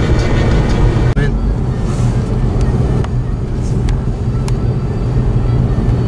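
Steady low rumble of vehicle engines and tyres on a snowy road, broken briefly about a second in.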